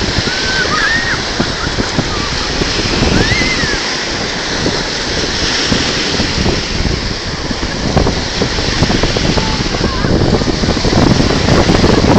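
Sea waves washing onto the shore with wind buffeting the microphone, growing a little louder near the end.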